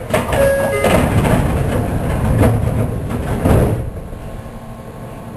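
Sliding passenger doors of a Tokyu 2000 series electric train closing, heard from inside the car: a sudden start and about four seconds of sliding and knocking, with a brief tone near the start, settling into a quieter hum.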